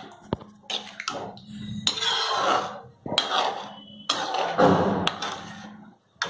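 Metal utensil clinking and scraping in a cooking pan of thick vegetable mixture: a few sharp clinks and several longer scraping strokes.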